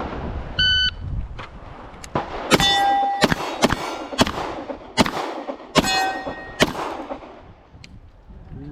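A shot timer beeps once, then a string of 9mm pistol shots from a Beretta M9 follows, several of them answered by the ringing clang of struck steel plates.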